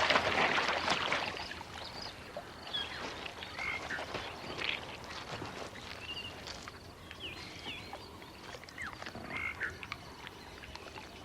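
Frog-like croaks and short chirping animal calls scattered over a quiet outdoor background, with a louder rustling rush in the first second.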